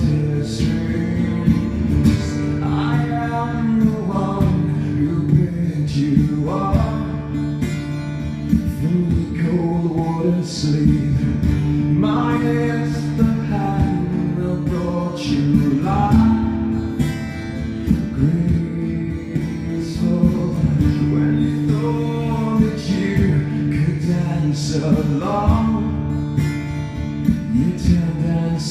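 Live solo acoustic performance: a man singing while strumming chords on his acoustic guitar, amplified through the venue's PA.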